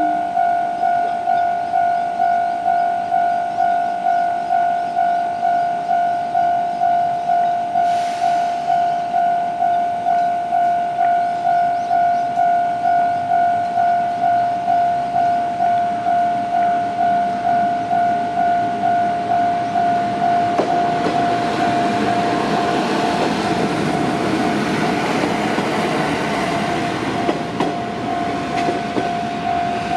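Japanese level-crossing warning bell ringing, an electronic ding repeating about twice a second. About two-thirds of the way in, a diesel railcar passes over the crossing. The noise of its engine and wheels swells under the bell and fades near the end.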